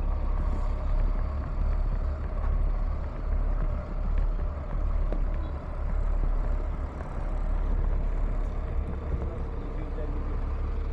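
Steady low rumble of a vehicle in motion, its loudness wavering slightly.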